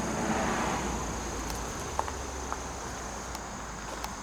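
Insects outdoors giving a steady, high-pitched drone over a faint background hiss, with a few light ticks.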